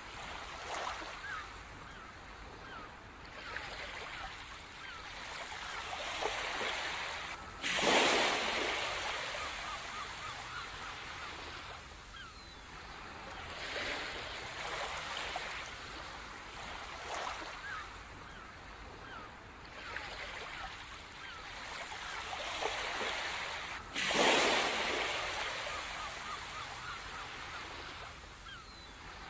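Ocean waves washing onto a beach, swelling and ebbing, with two larger waves breaking, one about a quarter of the way through and one about four-fifths of the way through.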